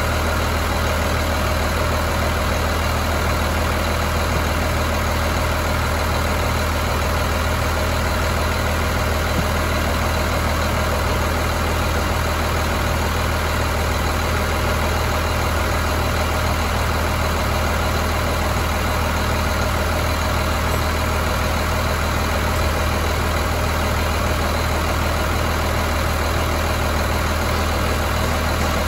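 2003 Cummins ISC 8.3-litre inline-six diesel idling steadily.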